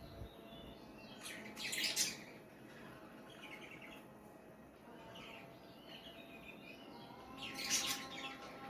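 Two forceful nose blows, each a hissing burst about a second long, one about a second and a half in and one near the end, from a nose congested with a heavy cold. Birds chirp faintly between them.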